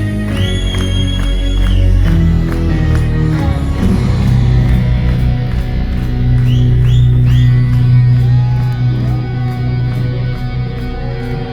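Live band music with guitar over a steady beat.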